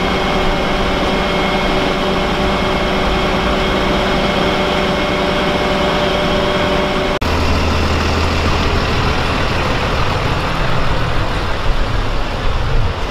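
Heavy truck engine idling: a steady low rumble with a thin whine over it, which changes abruptly about seven seconds in to a deeper, louder steady hum.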